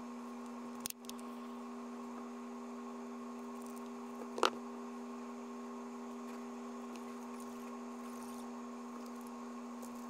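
Steady electrical hum, with small clicks of hand work on a handheld GPS and hobby knife on a desk: a light one about a second in and a sharper one about four and a half seconds in.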